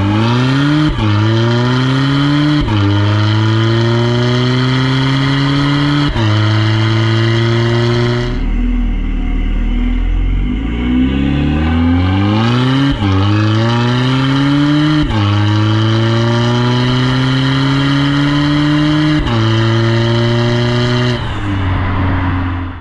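VW Tiguan 2.0 TDI diesel with a modified exhaust, pulling hard through the gears of its DSG gearbox: the exhaust note climbs and drops abruptly at each quick upshift, three times, then settles lower for a few seconds before pulling through four more upshifts.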